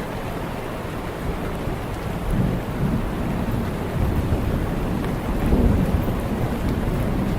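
Steady rain falling, with a low rumble of thunder that swells about two seconds in and is loudest just past the middle.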